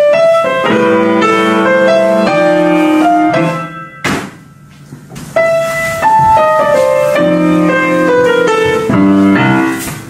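Solo piano playing a slow, chordal melody. About four seconds in, a single knock sounds and the playing breaks off for about a second before resuming.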